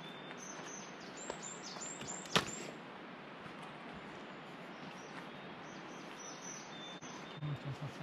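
Small forest birds calling with short, high, repeated notes and a few down-slurred whistles over the steady hiss of a mountain river. There is one sharp click about two and a half seconds in.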